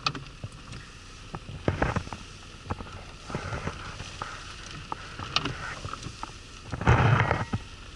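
Wind and rain on a parked car, heard from inside the cabin: a steady rush with irregular taps of raindrops on the glass and body, and a louder gust buffeting the car about seven seconds in.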